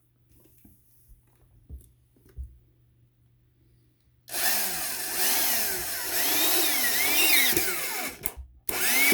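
Power drill working into the wooden beehive box: light knocks first, then about four seconds in the drill starts and runs hard, its pitch rising and falling as the speed changes under load. It stops briefly near the end and starts again.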